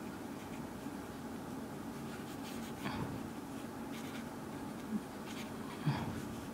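Marker pen scratching across sketchbook paper as black areas of an ink drawing are filled in, with a few short, sharper strokes standing out about halfway through and near the end. A steady low hum runs underneath.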